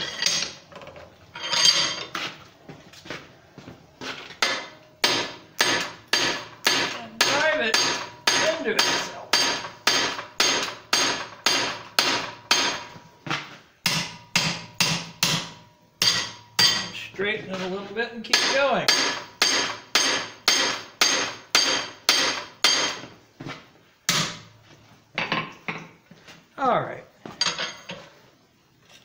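Hand hammer striking the end of a steel bar clamped in a leg vise, upsetting (thickening) its glowing-hot section to gather metal for a square corner: steady ringing blows about two a second, with a few short pauses and sparser blows near the end.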